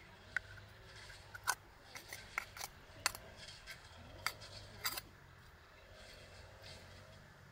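A ribbed steel rebar rod scraping and clicking against an oyster shell as the shell is pried open: about a dozen sharp clicks and scrapes over the first five seconds.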